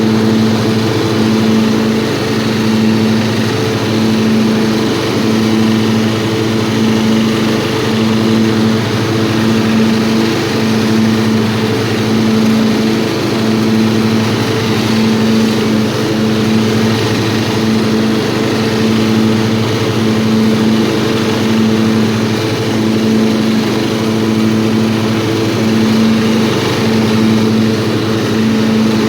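Old riding lawnmower's small engine running steadily, its note swelling and fading slightly about once a second.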